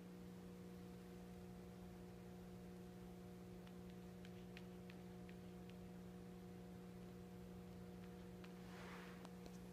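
Near silence with a faint steady electrical hum. A few faint light taps sound around the middle as a kitten paws at a tablet's glass screen, and a short soft rustle comes near the end.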